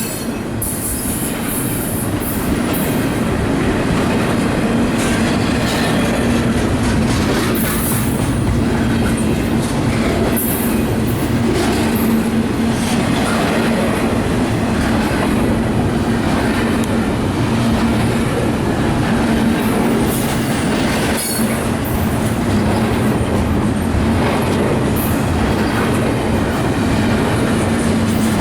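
CSX freight train rolling past, its cars and wheels clacking over the rail joints with a steady hum.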